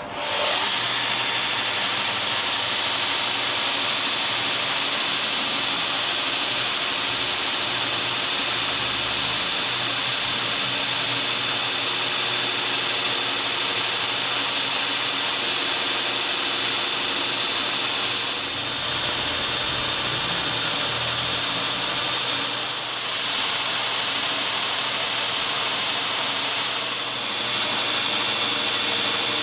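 Home-made belt grinder running: steady motor hum under a loud hiss from the abrasive belt. It comes in suddenly and dips briefly three times in the second half.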